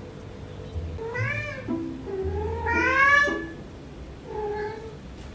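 Domestic cat meowing three times, the middle call the longest and rising in pitch.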